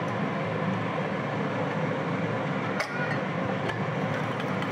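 Steady hiss of a pan of masala cooking on a gas stove, with a light clink of a metal fork against a steel bowl about three seconds in.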